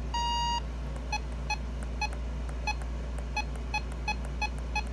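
Radio Shack 262 weather radio's keypad beeping as its menu buttons are pressed: one longer beep just after the start, then a string of short identical beeps, roughly two a second, as the settings are scrolled, over a steady low hum.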